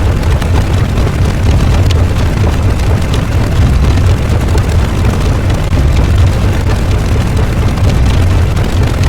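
Loud, continuous rumbling noise sound effect, heaviest in a deep low rumble with a dense hiss above it, steady throughout with no separate blasts.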